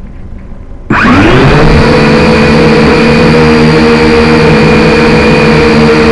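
Quadcopter's electric motors and propellers spinning up suddenly about a second in: the pitch rises quickly and then holds a loud, steady multi-tone whine with a hiss of prop wash, powering up for take-off. It is heard from the camera mounted on the drone itself.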